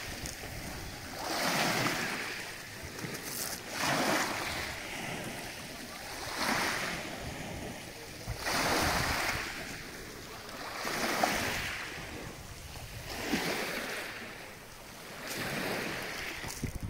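Small sea waves washing onto a pebbly shore, one about every two seconds, each wash swelling and then fading away.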